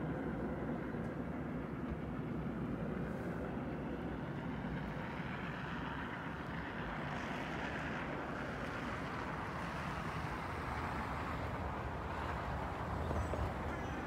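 Steady road traffic: cars driving by on a snowy road, their tyre and engine noise a continuous rush that swells in the middle and eases toward the end.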